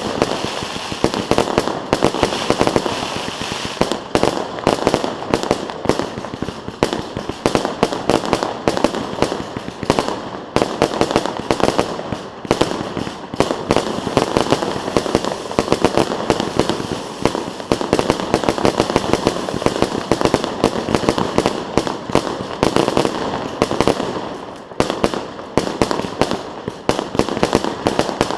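Fireworks display: a dense, unbroken barrage of bangs and crackles, many per second, easing slightly near the end.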